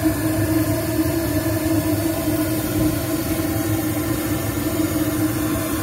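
Small locomotive's engine idling, a constant steady hum with no change in speed.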